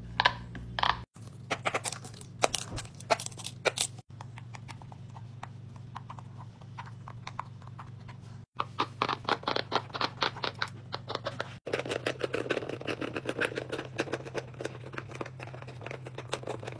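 Fidget toys being pressed and popped: runs of quick sharp clicks and pops that stop and restart a few times.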